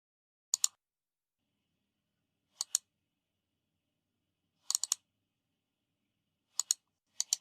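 Short pairs and triplets of sharp, high clicks, about every two seconds, with dead silence between them.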